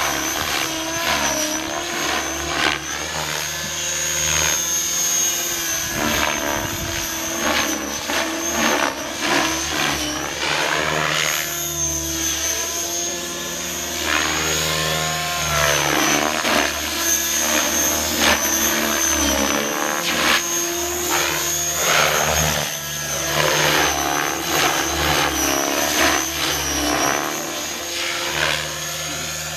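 Radio-controlled model helicopter flying aerobatics. A steady high whine from the motor and rotors, with the rotor sound repeatedly sweeping up and down in pitch as the helicopter manoeuvres.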